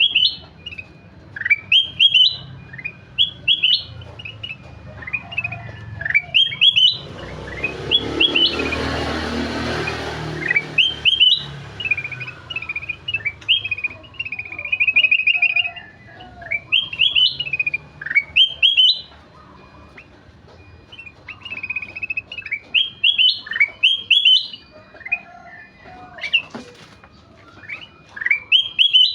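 Kutilang emas, a bulbul, singing: a string of short rising chirps and whistled phrases, with a quick trilled run about halfway through. A broad rushing noise runs underneath for a few seconds near the first third.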